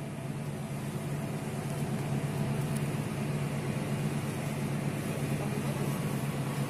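Steady low drone of the passenger ship KM Lawit's engines, heard on deck under a constant rushing hiss.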